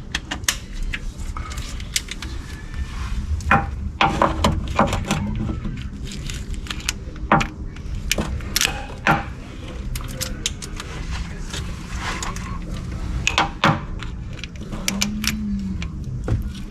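Socket wrench and metal hand tools clicking and clanking against engine parts while bolts are being removed, in irregular sharp knocks and taps.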